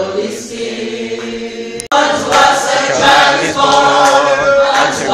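Church congregation singing together, holding the final note of a hymn. About two seconds in, the sound cuts out abruptly and a new song starts, sung by many voices.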